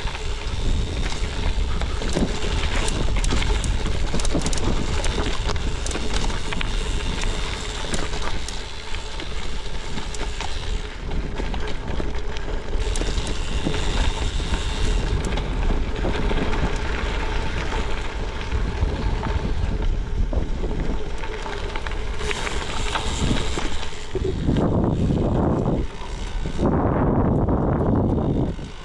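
Gravel bike rolling over a loose gravel fire road: tyres crunching on stones and the bike rattling, mixed with heavy wind noise on the microphone, with two louder rushes near the end.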